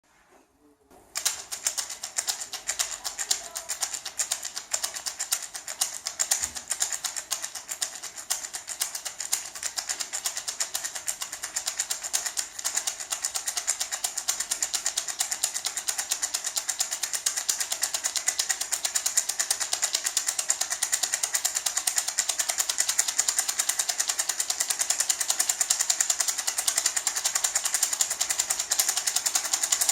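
Small gourd maraca (shaman rattle) shaken in a fast, even, continuous rhythm, giving a dry rattle that starts about a second in.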